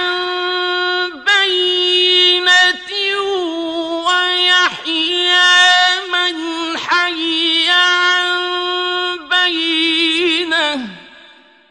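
A man's high voice reciting the Quran in the slow, melodic mujawwad style, holding long, wavering, ornamented notes across several phrases. It fades out about eleven seconds in, at the end of a phrase.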